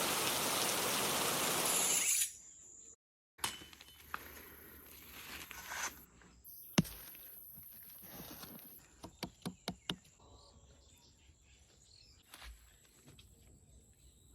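Heavy rain pouring steadily for about two seconds, then cut off. After a short silence comes quiet outdoor background with a steady high hum, a sharp click and a quick run of clicks and knocks.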